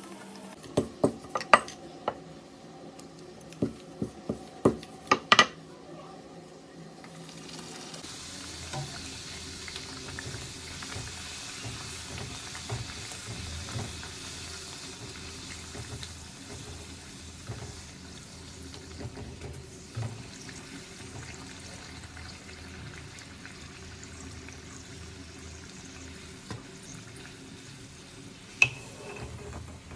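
Bhatura deep-frying in hot oil in a kadai, with a steady sizzle that grows fuller about eight seconds in. Several sharp taps come in the first five seconds and one more near the end.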